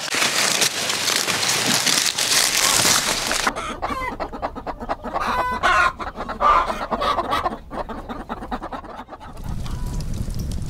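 A flock of chickens clucking, with short pitched calls, from about four seconds in until about nine seconds. Before them comes a loud, dry rustling noise, and near the end a steady low noise takes over.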